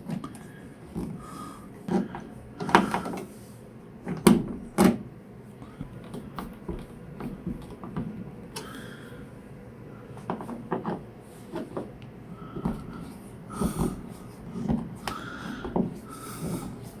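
Irregular clicks, knocks and light clatter of hand tools and parts being handled during electrical switch installation work, with the sharpest knocks a few seconds in.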